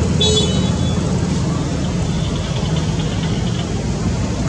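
Steady low rumble of a motor vehicle's engine running nearby. A short high squeak is heard about a quarter second in.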